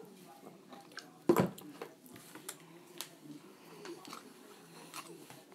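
Plastic spoon stirring a fluffy-slime mixture in a plastic bowl: soft squishing with scattered light clicks, and one sharp knock about a second and a half in.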